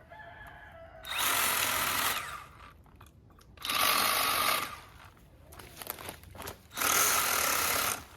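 Milwaukee M12 Hatchet cordless pruning saw cutting cherry limb wood, three short cuts of about a second each with the motor quieter in between.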